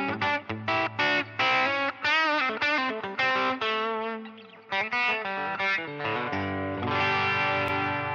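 Telecaster-style electric guitar played solo: a run of quickly picked single notes with a bent, wavering note about two seconds in, then a chord struck about six seconds in and left to ring.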